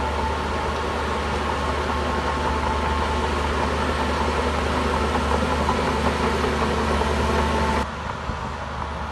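Heavy construction machine's diesel engine running steadily. About eight seconds in the sound drops abruptly to a lower level and carries on.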